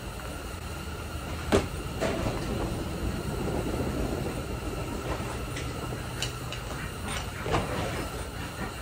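Metal parts knocking and clunking as an oil catch can and its bracket are handled and test-fitted at a kei truck's engine bay. A sharp knock about one and a half seconds in is the loudest, with a few lighter knocks later, over a steady low hum.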